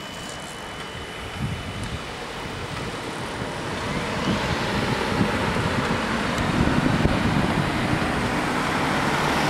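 Road traffic crossing a level crossing: a car drives past with engine and tyre noise, then a Ford Transit Custom van approaches over the crossing, the sound growing steadily louder towards the end.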